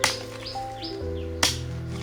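Background music of held notes, with a sharp knock at the start and another about a second and a half in. There are a few short birdlike chirps in the first second.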